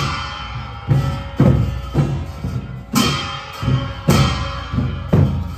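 Traditional Himachali temple music for the village deity: large drums beaten in a slow, steady beat of about two strokes a second, with bright ringing metal crashes on several strokes, at the start and again about three and four seconds in.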